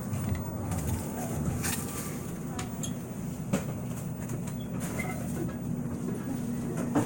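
Grocery store background sound: a steady low hum with faint distant voices and a few small clicks and knocks.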